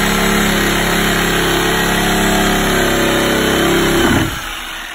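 Corded reciprocating saw running steadily while cutting into the wooden support frame under a brick chimney. About four seconds in the trigger is released and the motor winds down and stops.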